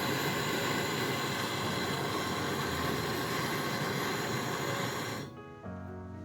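A loud, steady hissing rush that cuts off sharply about five seconds in, after which background music plays.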